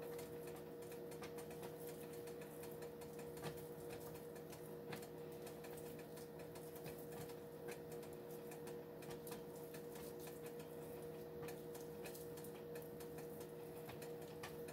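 Thick white gravy simmering gently in a skillet, giving soft irregular ticks and pops over a faint steady hum.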